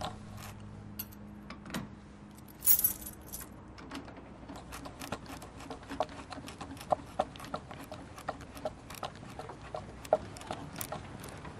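Small metallic clicks and clinks of a screwdriver working on a door lock and its handle fittings. A louder jingle of loose metal parts comes about three seconds in.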